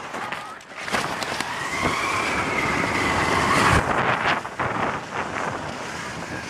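Rushing scrape of a snow tube sliding down a snowy slope, with wind buffeting the microphone and a few knocks. In the middle there is a long high-pitched sound that rises and falls over about two seconds before the slide stops near the end.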